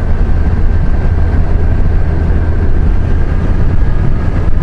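Kawasaki Versys 1000 motorcycle riding at a steady road speed: a constant low engine drone mixed with wind and road rumble.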